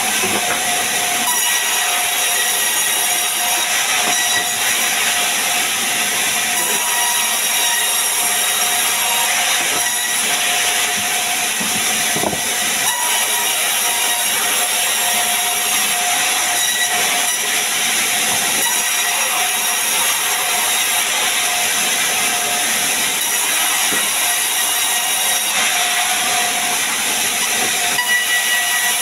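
Sawmill band saw running steadily while its blade rips a log lengthwise into slabs: a constant high whine over a dense hiss.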